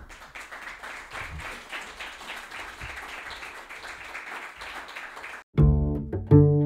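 Audience applauding steadily for about five seconds; the applause cuts off abruptly and much louder music with low pitched notes begins.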